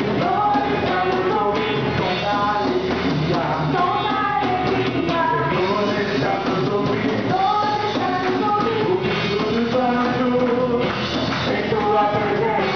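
Rock-style band music with a voice singing a melody over it.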